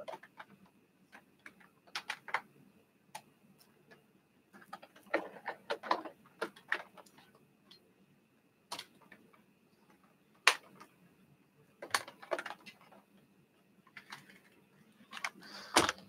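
Scattered clicks and knocks of handling as a Bissell Crosswave floor cleaner is brought out and readied, the loudest knock coming near the end as it is set on the carpet. A faint steady high tone runs underneath.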